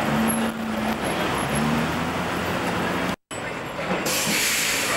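Street traffic: car engines and tyres with a W-class tram running along the road. The sound drops out for a moment a little after three seconds in, then comes back with a brighter hiss.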